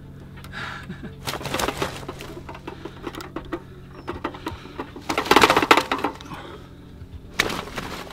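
Bursts of rustling and crackling with sharp clicks from a carp weigh sling and dial scales being handled, with the loudest burst about five seconds in and another near the end, over a faint steady low hum.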